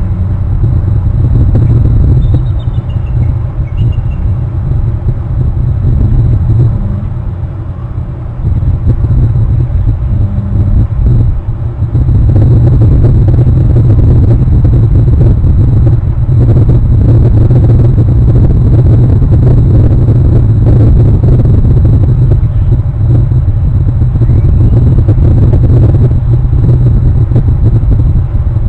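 Wind buffeting an outdoor camera microphone: a loud, fluctuating low rumble that eases briefly twice in the first twelve seconds, then holds steady.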